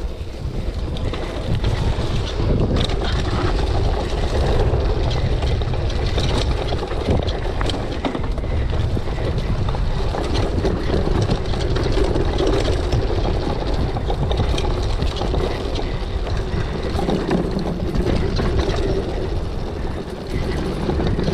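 Wind rushing over the camera microphone while a mountain bike runs down a rough, wet dirt trail, the bike rattling with many small knocks throughout.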